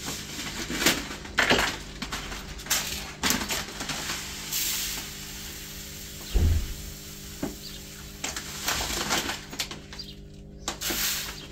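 Dry pink lentils poured from a plastic packet into a plastic measuring cup and basin, with the packet crinkling and rustling, and a dull knock about six seconds in.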